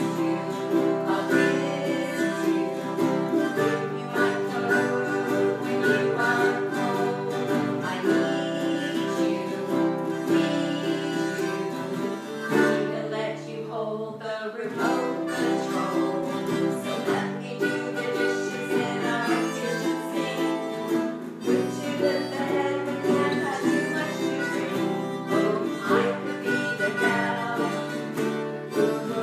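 Acoustic guitars and a ukulele strummed together with a harmonica playing held notes, and a woman singing along.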